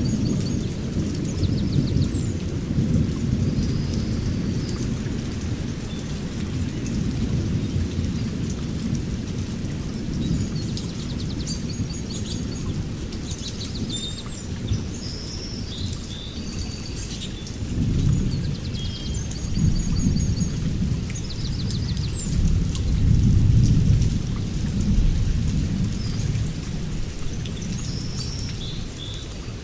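A deep, loud rumbling noise that swells and fades in rolls, with small birds chirping and trilling high above it throughout.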